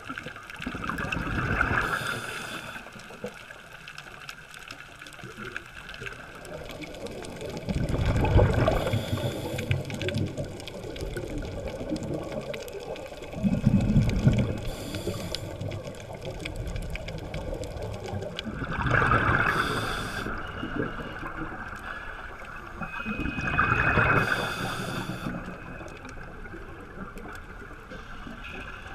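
Scuba divers' regulator breathing heard underwater: five gushing bursts of exhaled bubbles, about five seconds apart, with a steady low rushing between them.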